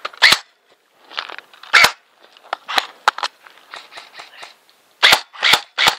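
Airsoft replicas firing single sharp shots, about nine in all: spaced singles at first, then three in quick succession near the end. Faint crackling handling noise lies between them.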